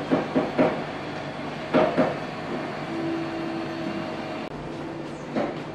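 Steady mechanical hum with a faint held tone, and a few brief knocks near the start and about two seconds in.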